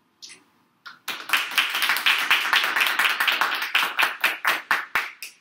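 Audience applauding. The clapping starts about a second in, thins out near the end and cuts off suddenly.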